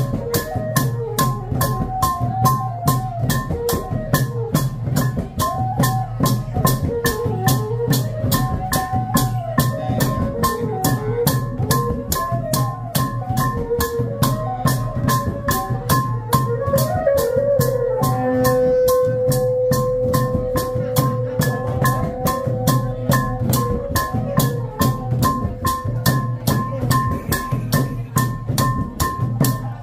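Khmer chhay-yam drum ensemble playing: a fast, even beat of drums and cymbals under a winding melody that holds one long note for several seconds past the middle.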